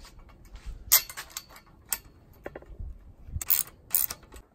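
Sharp metallic clicks and clinks of a chrome hanger rod and bolt on square steel tube posts while the bolt is turned with a socket wrench: a few separate knocks, then a quick cluster of clicks near the end.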